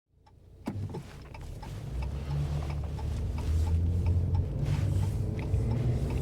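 Car interior: low engine and road rumble fading in and building to a steady level, with a sharp click about a second in and a faint regular ticking of about three ticks a second.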